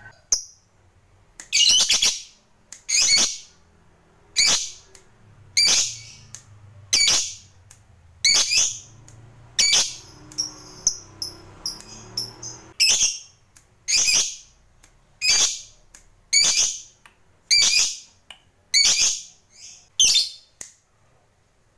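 A caged lovebird calling: loud, shrill calls repeat about once a second, with a softer stretch of continuous high chattering about ten seconds in.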